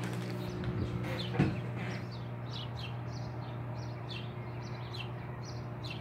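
Birds chirping in short, repeated high calls over a steady low hum, with a single sharp knock about a second and a half in.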